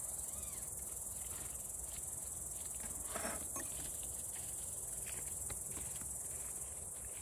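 Steady high-pitched chirring of meadow insects, with a few faint taps and knocks from objects being handled on a table.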